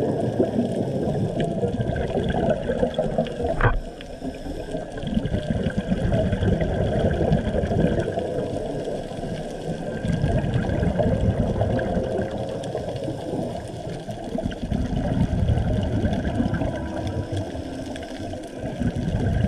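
Underwater reef ambience picked up by a camera in a waterproof housing: a churning low rumble of moving water that swells and eases, with a fine crackle of faint clicks over it. There is one short, sharp sound a little under four seconds in.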